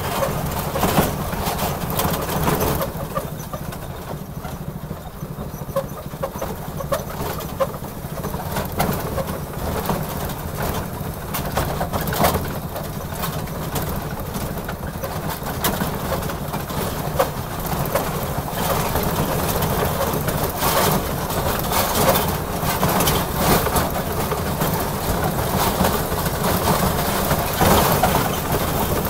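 Ride-on miniature railroad locomotive running along the track: a steady low engine drone with irregular clicks and knocks.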